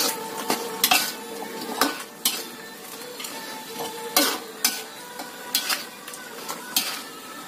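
Metal spatula clinking and scraping against an aluminium wok in irregular strokes as chicken in sweet soy sauce is stirred, with a steady sizzle from the simmering sauce underneath.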